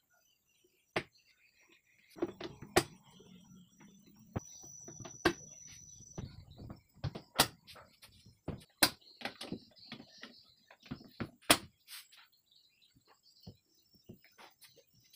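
Clicks and knocks of HPL-faced cabinet doors on metal hinges being handled, swung and shut, in a string of sharp separate strokes with some handling rustle in between.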